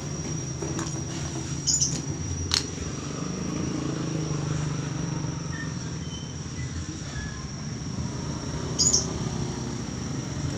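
A steady low rumble with a thin, steady high whine above it, broken by a few sharp clicks, once about two seconds in and again near the end.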